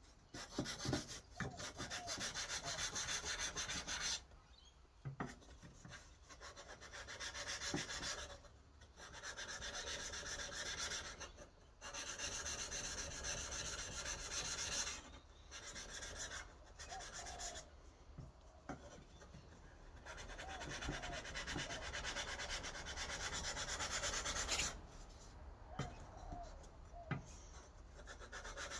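An 80CrV2 steel scandi-grind knife blade being rubbed back and forth on 600-grit wet/dry sandpaper lubricated with WD-40: a scratchy rasp of quick strokes in long runs, broken by several short pauses.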